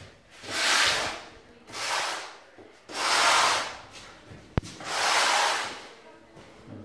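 Four long rubbing strokes across a large clinker tile on a sawhorse, each about a second, with a single sharp click between the third and fourth.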